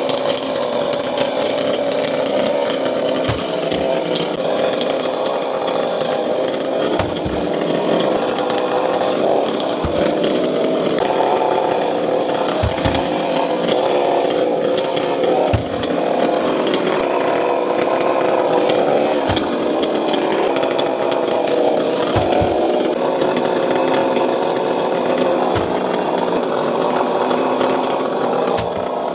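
Chainsaw running through a coconut palm trunk, its engine note wavering up and down as the cut loads it, with scattered dull knocks.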